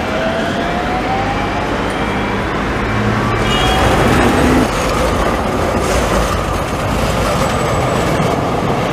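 Electric street tram running past on its rails, with dense wheel and track rumble and a thin motor whine rising in pitch over the first couple of seconds.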